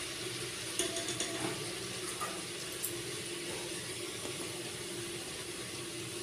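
Sliced onions frying in oil in a clay handi: a steady sizzle, the onions still softening and not yet browned. A few light clicks of metal tongs against the pot about a second in.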